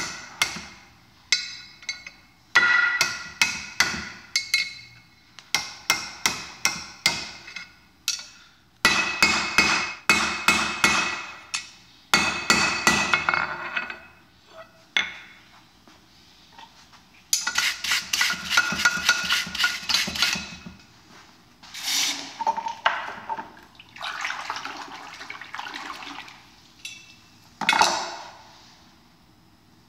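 Forging hammer striking hot 3/8 inch mild steel rod on a steel anvil, in quick runs of ringing blows at about four a second through the first half. Later come stretches of scraping noise and one last single strike near the end.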